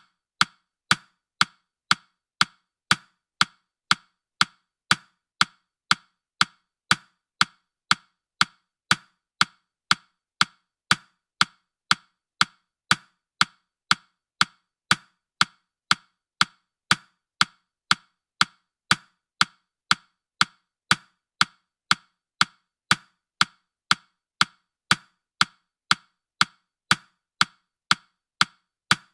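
Countdown timer ticking steadily, about two sharp ticks a second, while the countdown is still running and before the alarm.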